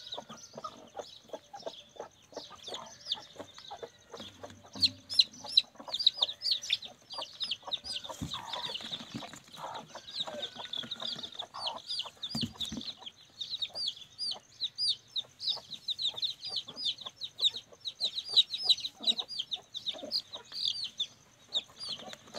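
Aseel chicks peeping shrilly and without pause while they are held in the hand, a fast run of short falling peeps several a second. A couple of dull knocks come about eight and twelve seconds in.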